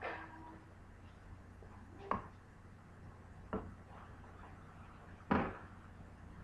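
Wooden spoon knocking against a frying pan while stirring a simmering beef stew: four sharp knocks a second or two apart, the loudest about five seconds in, over a faint low hum.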